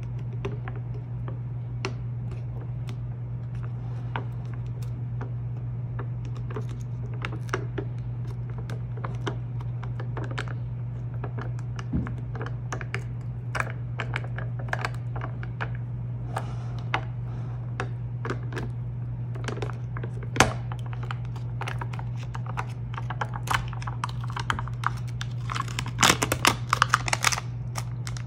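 Fingernails picking and tapping at the foil seal on a plastic slime tub: scattered sharp clicks and crinkles, coming thick and loud near the end as the foil is worked free and peeled back. A steady low hum runs underneath.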